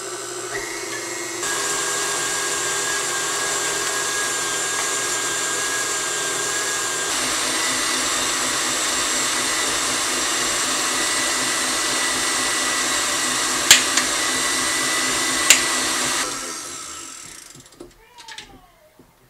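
Tilt-head stand mixer whipping egg whites with its wire whisk: a steady motor whine that gets louder in two steps, early on and about seven seconds in, with two sharp clicks a couple of seconds apart. The motor is switched off about sixteen seconds in and winds down, followed by a few light knocks.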